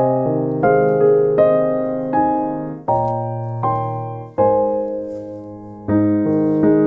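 Background music: slow, gentle piano (electric piano) chords, with new chords struck every second or so.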